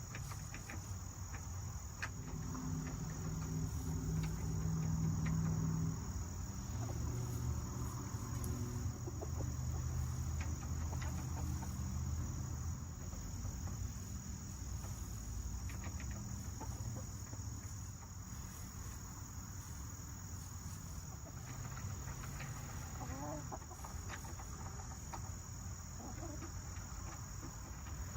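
Crickets trilling in one steady, unbroken high note, with a few soft clucks from backyard chickens.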